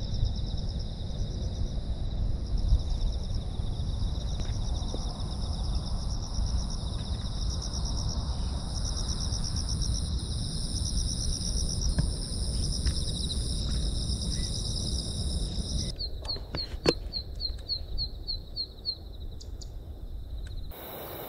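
Wind buffeting the microphone over a steady, pulsing high trill of insects in the grass. About sixteen seconds in the wind drops, and a zitting cisticola gives a run of sharp, evenly spaced high calls, about three a second, along with a few handling clicks.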